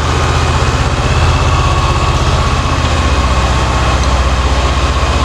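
Honda CB500X's parallel-twin engine running steadily at low revs, with a faint steady whine above it.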